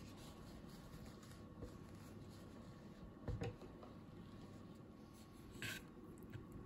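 Quiet room tone with a single low thump about halfway through, then a brief scrape near the end as a hand grips the paper ramen cup and chopsticks dip into the noodles.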